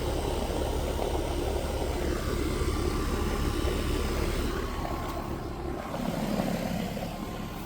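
Heat pump outdoor unit running steadily: fan noise over a low hum.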